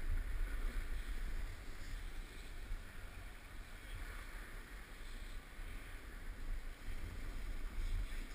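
Wind rumbling on a helmet-mounted action camera's microphone while sliding down a groomed snow slope, with a steady hiss of snow scraping underneath.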